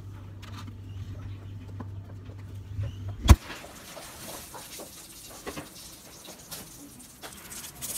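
Steady low hum inside a refrigerator, cut off about three seconds in by the door shutting with one loud thump. After that comes a hiss with small crackles, the sizzle of meat skewers grilling.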